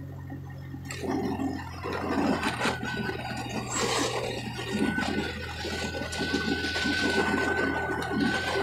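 Vehicle cabin noise while driving: a steady low engine drone, joined about a second in by a louder rushing noise.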